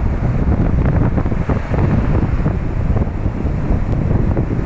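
Wind buffeting the microphone in a loud, low rumble, with sea surf washing behind it.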